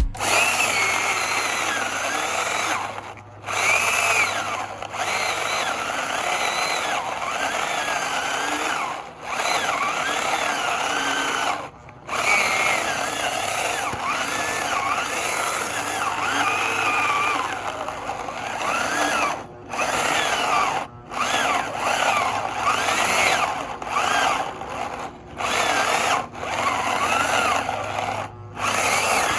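Hyper Tough 9-amp 14-inch corded electric chainsaw running at full speed, its motor pitch wavering as it works, cutting off briefly about seven times.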